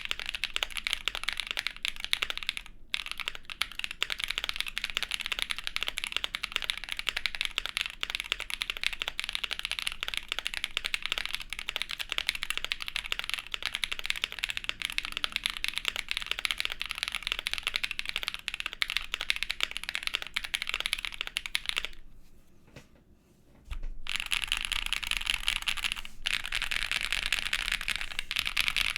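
Custom Vega gasket-mount mechanical keyboard being typed on steadily: lubed Kailh black-stemmed Creamsicle linear switches in a POM plate under GMK keycaps. The typing stops for a moment near 3 seconds in and for about two seconds late in the stretch.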